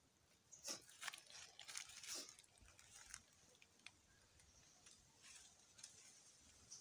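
Faint, irregular crackling and rustling of dry leaves and twigs underfoot as a person shifts and crouches, with a cluster of sharper crackles in the first three seconds, then only scattered light ticks.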